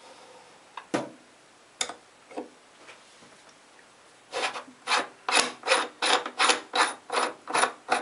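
Metal cap (collar) of a Delta single-handle faucet being unscrewed counterclockwise: a few light clicks as the adjustable wrench works the collar, then about ten short scraping rasps of the threads, a little over two a second, as it is twisted off by hand.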